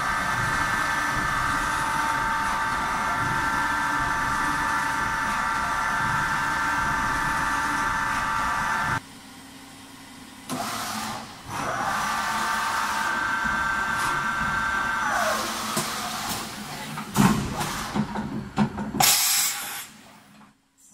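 Kondia B-1050 vertical machining center running with a steady high-pitched motor whine that cuts off abruptly about nine seconds in. It starts again with a rising whine, holds steady for a few seconds, then winds down. A series of clunks and a short hiss follow near the end.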